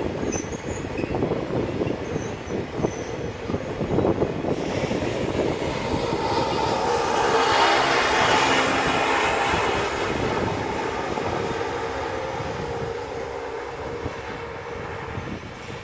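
Open-top freight wagons rolling past on the rails, their wheels clattering and knocking for the first few seconds. From about four seconds in a louder steady rushing noise with faint ringing tones takes over; it peaks about halfway and slowly fades as the train moves away.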